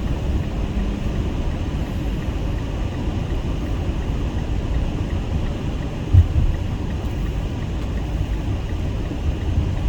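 A car driving along a highway exit: a steady low rumble of road and engine noise, with one short low thump about six seconds in.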